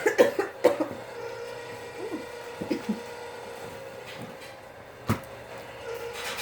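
A quick run of knocks and clicks, then a single sharp knock about five seconds in, over a steady hum.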